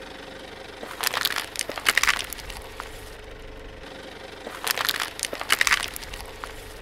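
Thin red plastic bowls cracking and crunching as a car tyre rolls over and flattens them. The crunching comes in two bursts, each a little over a second long, about a second in and again near the end.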